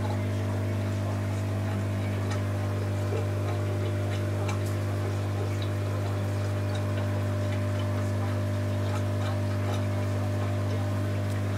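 Steady electric hum of an aquarium pump, with scattered faint ticks.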